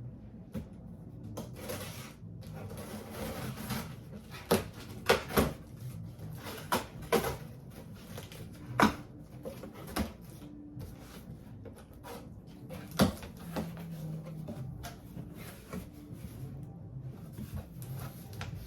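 Scattered knocks and clicks of objects being handled, several sharp ones grouped around the middle, over a low steady hum.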